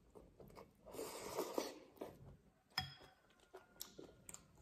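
Slurping a mouthful of noodles and chewing, then a chopstick clinks sharply against a ceramic bowl about three seconds in, followed by a few lighter taps.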